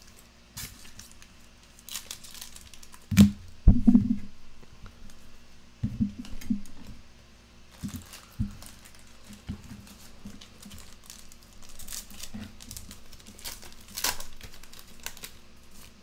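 Foil trading-card pack being torn open and its wrapper crinkled, with cards rustling as they are handled, and a couple of dull thumps a little over three seconds in.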